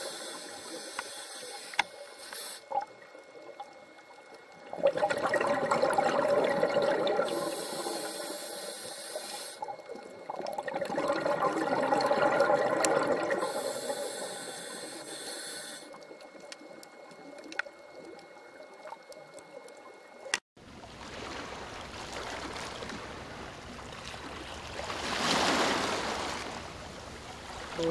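Scuba regulator breathing recorded underwater: a hissing inhalation alternates with a louder gurgle of exhaled bubbles, one breath every five or six seconds. About two-thirds of the way through it cuts sharply to a steadier wash of water noise, which swells near the end.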